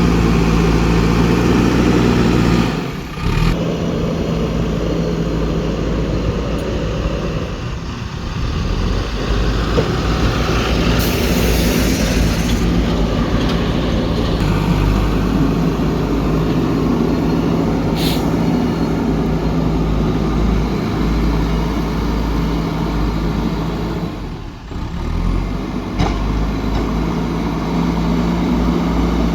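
JCB 3DX backhoe loader's diesel engine running loud and steady under working load while it digs and loads soil, dipping briefly twice. A short hiss comes about eleven seconds in.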